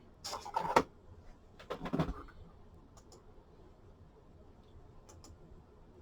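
Two short rustling clatters of handling noise, about a quarter of a second in and again at two seconds, followed by a few faint clicks.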